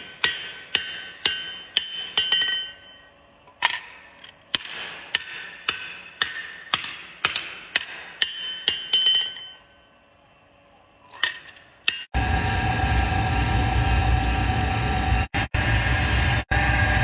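A hand hammer striking steel on an anvil, about two ringing blows a second, stopping after about ten seconds. About two seconds later a loud, steady machine noise starts abruptly.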